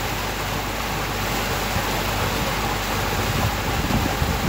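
A boat's engine running steadily with a low hum, under a constant rush of wind and water as the boat moves across the lake.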